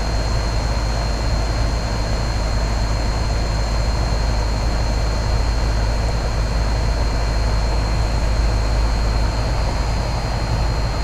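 Central air-conditioner condensing unit running steadily: a strong low compressor hum under the even rush of the condenser fan, with a thin steady high whine. The unit is badly corroded but working normally.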